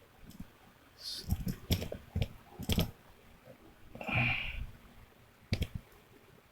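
Scattered sharp clicks and knocks of handling as a mini USB Wi-Fi adapter is plugged into a computer's USB port, with a short scraping noise about four seconds in.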